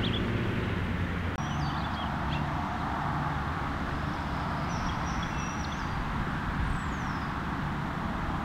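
Steady outdoor background noise with a low rumble, with a few short, high bird chirps here and there.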